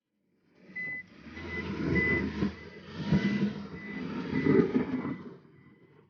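Case backhoe running with its reversing alarm beeping repeatedly over the engine and plow noise. It starts about half a second in and fades out near the end.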